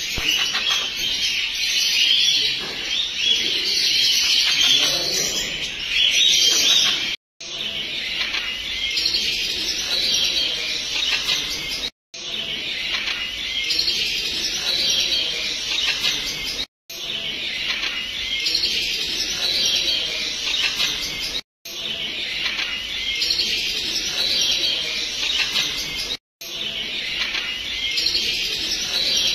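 Birds chirping in a continuous, busy chatter of high calls. The chatter cuts out briefly and restarts about every five seconds.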